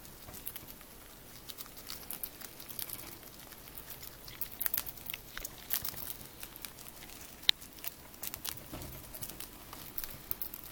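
Pet rats chewing mealworms, a quick, irregular crackle of small crunches and clicks, with one sharper click about seven and a half seconds in.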